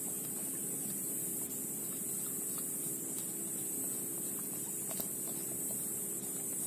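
Steady background hiss and low hum with no clear event, broken by a few faint clicks and one slightly sharper click about five seconds in.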